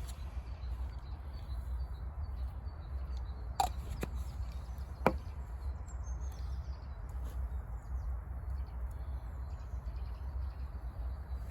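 Outdoor ambience: a steady low rumble with faint bird chirps, broken by two sharp clicks about three and a half and five seconds in.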